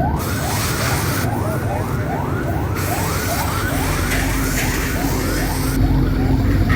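Siren-like warning tone of quick rising whoops, about two and a half a second, over a steady background of machine or traffic noise.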